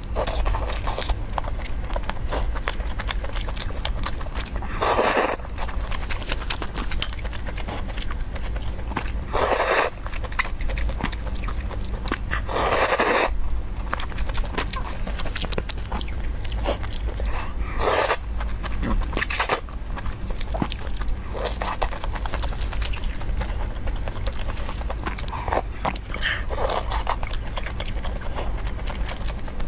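Close-miked eating of noodles in broth: continuous chewing and wet mouth clicks, with about four loud noodle slurps spread through, over a steady low hum.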